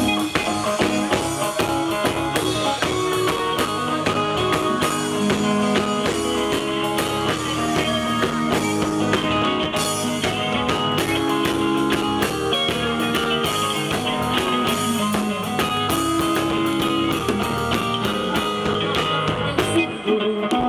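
Band music, guitar over a drum kit, playing with a steady beat.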